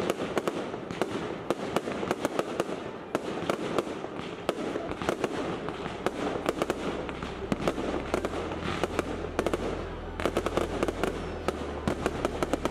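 Aerial fireworks bursting overhead, a dense, continuous crackling of many rapid pops and snaps from crackle stars.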